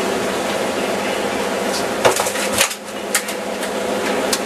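Steady engine hum from the boat, with a cluster of sharp knocks and clatter about two seconds in and single clicks a little after three seconds and near the end, as gear is handled on the wooden boat.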